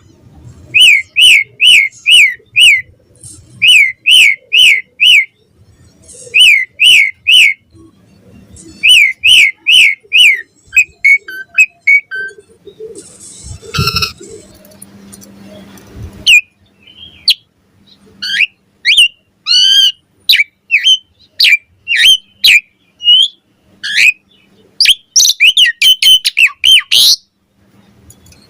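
Asian pied starling (jalak suren) singing vigorously: loud, clear down-slurred whistles repeated in groups of four or five, a brief harsh noisy stretch about halfway, then a faster run of varied whistles, rising sweeps and chattering notes.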